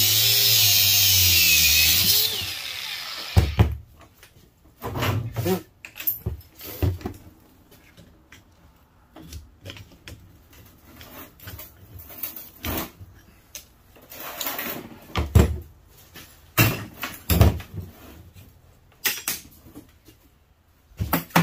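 Angle grinder cutting into a small copper motor's metal housing; it runs steadily, then is switched off about two seconds in and spins down with a falling whine. After that come scattered metal clanks and knocks as the motor is pried apart by hand.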